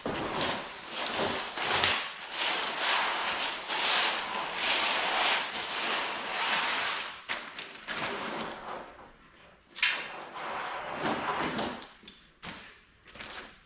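Packaging rustling and scraping as a long metal running board is pulled out of its shipping box, followed by a couple of sharp knocks near the end.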